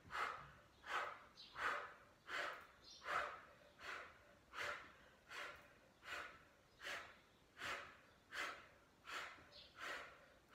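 A woman breathing hard and rhythmically through an exercise, one quick, forceful breath about every three-quarters of a second, keeping pace with a fast Pilates leg-switching movement.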